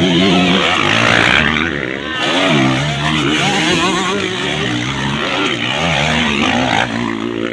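Motocross dirt bike engines revving hard and easing off as the bikes take jumps, the pitch rising and falling over and over.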